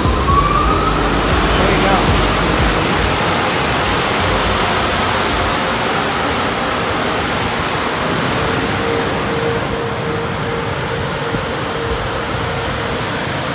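Water jet from a car-wash hose wand spraying against a car's bodywork and splashing onto wet concrete: a steady rushing hiss. A faint steady hum joins about two-thirds of the way through.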